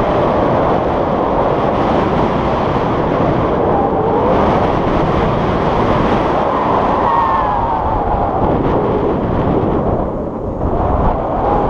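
Airflow buffeting an action camera's microphone in tandem paraglider flight: a loud, steady rush that dips briefly near the end.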